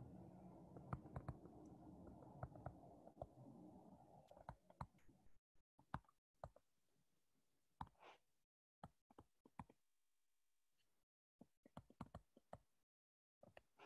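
Near silence broken by faint, scattered clicks and taps. A faint low hum fades out about five seconds in.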